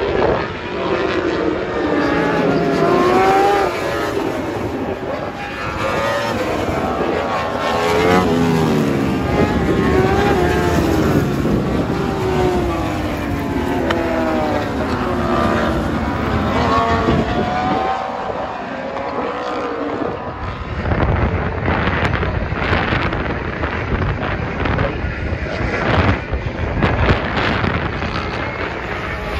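A pack of racing superbikes coming through a corner, several engines overlapping as each revs up and down through the gear changes. In the last third the sound turns rougher and pulsing as bikes pass close by.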